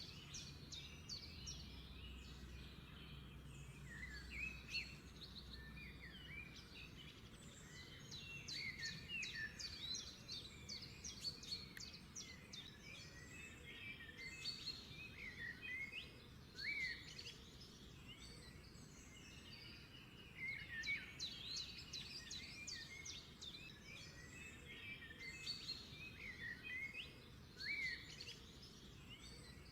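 Birds chirping and twittering, many short quick calls that glide up and down, over a faint low hum.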